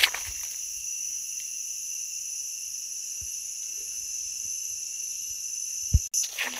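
Steady high-pitched insect chorus, with a single dull thump near the end.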